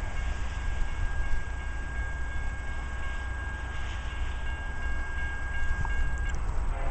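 Horn of an approaching freight train's lead SD70ACe locomotive, heard from a distance, sounding for the grade crossing: steady tones held for several seconds, one part dropping out briefly near the start, the horn cutting off about six seconds in, over a low rumble.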